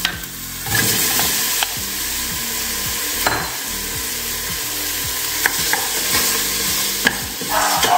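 Raw chicken giblets and pieces sizzling in hot oil with sautéed onion and garlic in a metal pot, the sizzle getting louder about a second in as the meat goes in. A wooden spoon stirs them, with a few sharp scrapes and knocks against the pot.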